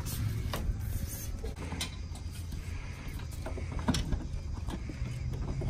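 Front bumper of a Mk2 Volkswagen Golf being swung up and pushed back into place, giving a few plastic clunks and clicks, the loudest about four seconds in, over a steady low rumble.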